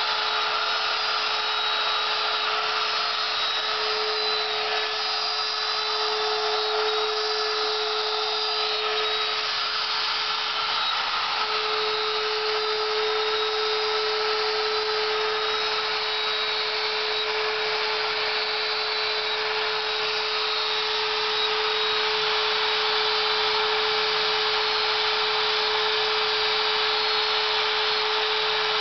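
A CNC router's wood-router spindle spinning a 1/8-inch two-flute carbide end mill at about 18,000 RPM, milling gear teeth into wood: a steady high whine over a constant hiss of cutting.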